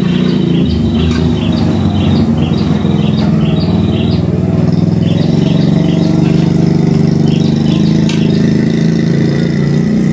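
A motor engine running steadily with a loud low drone, with a bird chirping over it about twice a second.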